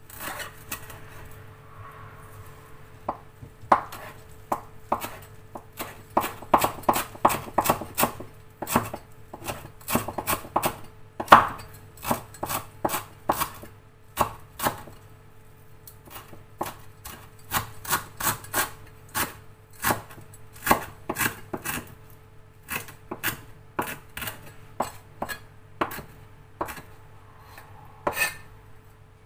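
Cleaver chopping green herbs on a wooden cutting board: quick runs of sharp knocks, about four a second, broken by short pauses. A faint steady hum lies underneath.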